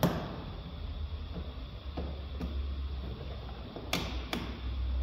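Hand-tool work inside an Audi A6's stripped front door: a sharp click at the start, a few light knocks around two seconds in, and two more sharp clicks near the end, as a screwdriver and hands work on the bare metal door shell. A low steady rumble runs underneath.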